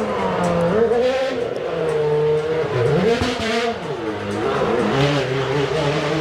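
A car engine revving, its pitch rising and falling unevenly over several seconds.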